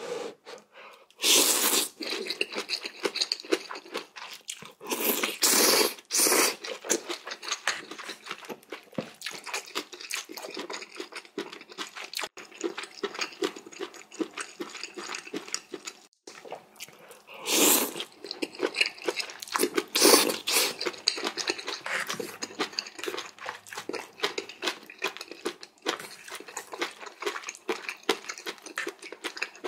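Close-up eating of jjamppong, spicy Korean seafood noodle soup: steady wet chewing and crunching, broken four times by louder slurps of noodles about a second long.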